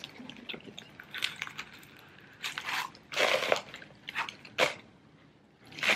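Handling noise from a leather ballet flat being turned over in the hands: irregular rubbing and crinkling with a few short sharp scuffs, the loudest in the second half.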